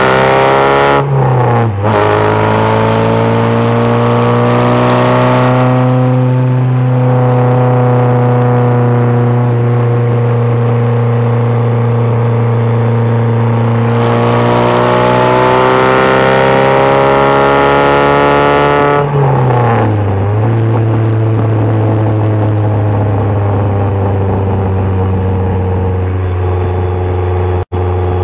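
Ford 2.0 Zetec four-cylinder engine of an MG Midget heard from the open cockpit, pulling hard on track: the engine note climbs steadily under acceleration and drops sharply twice as the revs fall, about a second in and again around nineteen seconds. The sound cuts out for an instant near the end.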